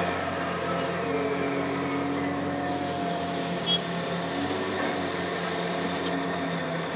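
John Deere 800C LC excavator's diesel engine and hydraulics running steadily, heard from inside the cab while the operator swings and works the bucket, with a higher whine that rises and falls in pitch as the hydraulics take load. A short click about three and a half seconds in.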